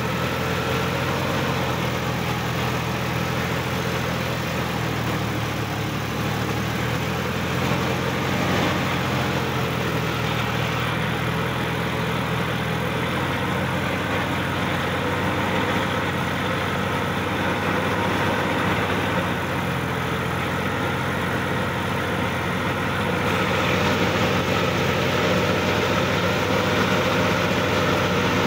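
Sonalika DI-50 RX tractor's diesel engine running steadily while the tractor drives, heard from the driver's seat. The engine note shifts slightly about halfway through and grows a little louder near the end.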